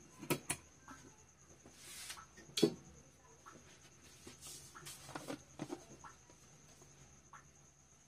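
A steel pot with a little oil heating on a gas burner: a few scattered sharp clicks and ticks, the loudest about two and a half seconds in, with brief soft hisses, over faint room noise.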